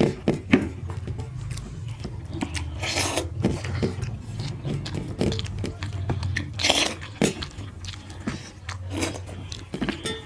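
Close-up eating sounds: chewing and mouth smacks of rice and chicken liver curry eaten by hand, with fingers squishing rice on steel plates. A couple of louder hissing sucks stand out about three and seven seconds in.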